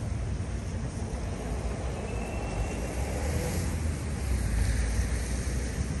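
Outdoor city traffic noise: a steady low rumble of road traffic, with a vehicle passing a little louder around the middle.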